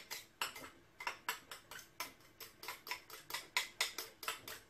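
Knife blade tapping and scraping against a small dish, pushing chopped onion off it into a glass bowl: a quick run of light clicks, about four a second.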